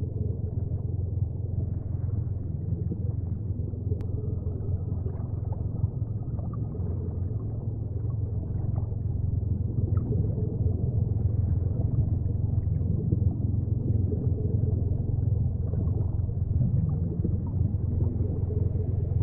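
Steady deep underwater ambience rumble, the designed sound bed of a dive, with one sharp click about four seconds in.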